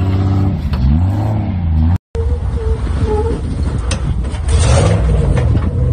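A lifted Jeep Cherokee XJ's engine revving up and falling back as it climbs a rocky ledge. After a short break, a Jeep Wrangler's engine runs under load on a steep rock climb, with a brief rush of noise about four and a half seconds in and the engine pitch rising near the end.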